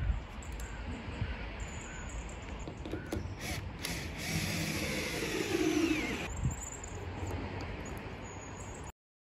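Cordless drill-driver running on a solar panel clamp fastener, its pitch falling as it slows under load while the fastener tightens, about four to six seconds in. The sound cuts off suddenly near the end.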